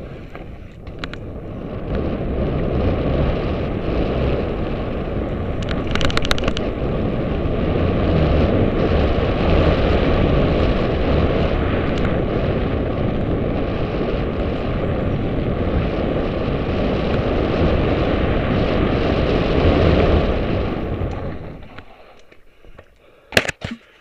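Wind buffeting a bike-mounted camera's microphone while a mountain bike rides fast down a dirt trail, mixed with tyre and frame rumble. There is a brief rattle about six seconds in. The noise dies away about 21 seconds in, and a few sharp clicks follow near the end.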